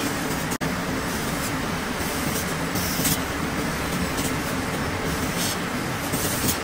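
Cotton mill machinery running: a steady, dense din with a low hum. It drops out for an instant about half a second in.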